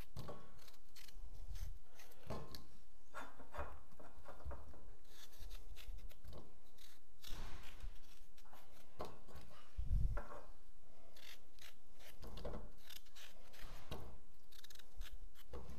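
A kitchen knife cutting through peeled raw potatoes held in the hand, in short irregular strokes, with large chunks dropping into a stainless steel pot; one dull thud about ten seconds in.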